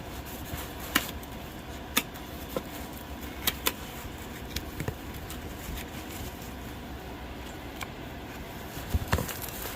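Hands fastening hook-and-loop straps around the poles of a grow tent: scattered light clicks and fabric handling noises over a steady low hum, with a few quick clicks near the end.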